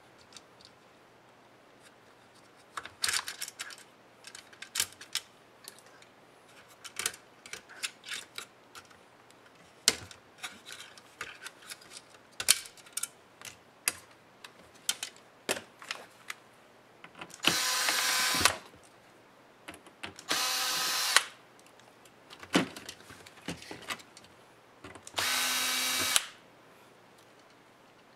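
Cordless drill-driver running in three short bursts of about a second each, backing screws out of a laptop's display hinges. Before the bursts come scattered clicks and taps of hands working on plastic laptop parts.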